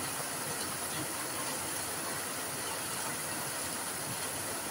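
Heavy rain falling steadily on dense tropical foliage and leaf-strewn ground: an even, unbroken hiss.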